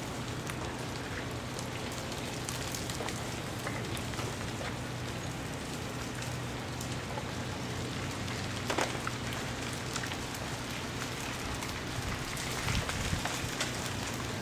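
Thawing ice breaking off ice-coated tree branches and falling, a steady rain-like pattering with scattered sharper ticks and clatters. The loudest clatter comes about nine seconds in, and a busier patch follows near the end.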